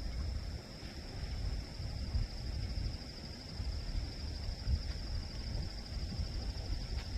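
Outdoor wildlife-park ambience: a steady, high-pitched insect drone over a low, uneven rumble.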